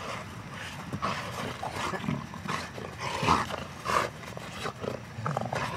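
Belgian Malinois growling in short, irregular bursts while gripping and tugging on a tug toy, with scuffing clicks in between.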